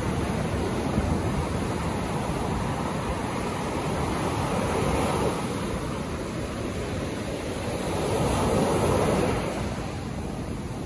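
Ocean surf breaking and washing up the beach in a steady rush, swelling louder twice, about four and eight seconds in.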